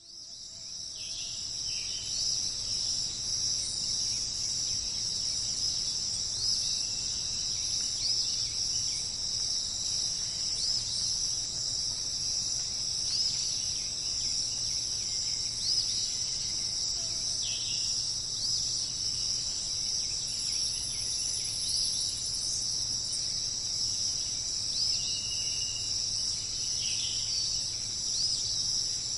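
A steady, high-pitched chorus of insects, fading in over the first two seconds, with occasional short bird chirps over it.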